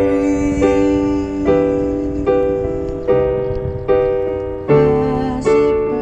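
Digital keyboard played with a piano sound: slow, even chords, a new one struck a little under once a second, each ringing and fading before the next.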